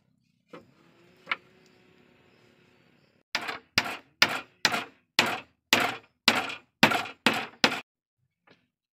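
Hatchet chopping at a wooden slat: about ten sharp blows, a little over two a second, after a quieter stretch of faint rustling and a single knock.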